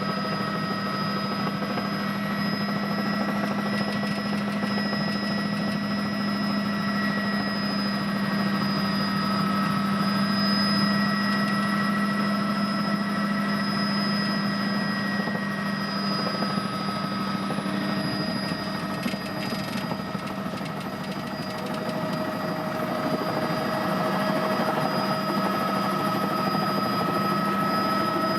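Helicopter in flight: a steady low rotor and engine drone with several high turbine whine tones held above it.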